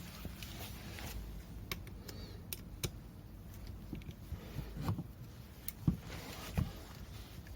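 Scattered light clicks and knocks of hand tools and small metal parts being handled during hands-on engine repair work, with no engine running.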